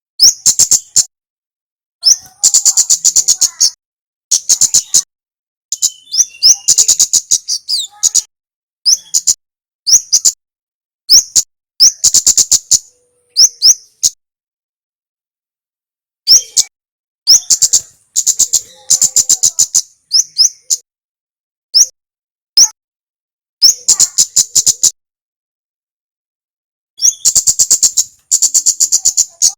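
Male kemade (kemlade merah) songbird singing: bursts of rapid, very high, sharp chip notes about a second long, with short upward-sliding single notes between them and pauses of one to a few seconds.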